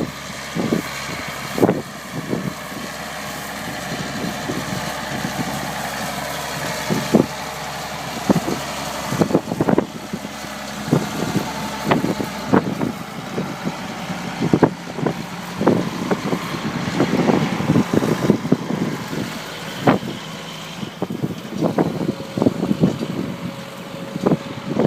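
A vehicle engine running steadily under wind noise, with irregular gusts thumping on the microphone throughout.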